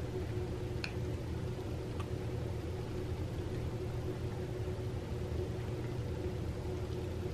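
Steady low hum of room background noise, with two or three faint clicks in the first couple of seconds from a cat chewing a piece of roasted chicken neck with its soft, crumbly bone.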